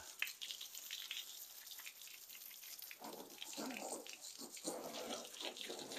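Water spraying from a garden hose onto a car's bodywork, a soft hiss and patter as the car gets its first rinse before shampooing. About halfway in, a faint indistinct voice-like murmur joins it.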